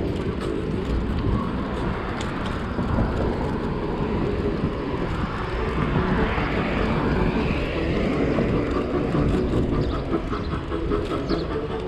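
Wind rumble on the microphone and road and traffic noise from a moving bicycle ride, swelling slightly around the middle.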